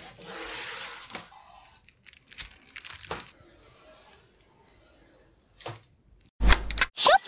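Clear protective plastic film being peeled off a TV screen: a crackling, tearing rasp that comes in several pulls. Near the end come two short, louder bursts, the second with a quick rising tone.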